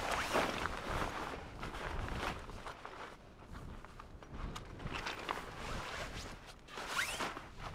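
A hiker's footsteps on a mountain trail, an uneven series of steps.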